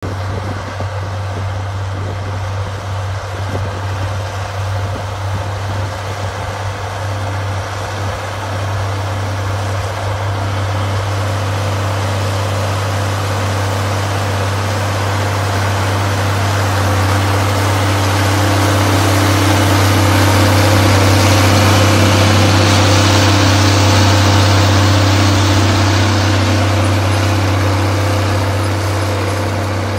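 Allis-Chalmers Two-Ten tractor's six-cylinder diesel engine running steadily under load as it pulls a moldboard plow. It grows louder through the middle as the tractor comes close, then eases off a little near the end.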